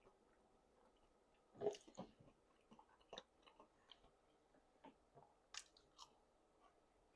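Faint mouth sounds of someone chewing food: scattered wet clicks and smacks, the loudest about one and a half seconds in.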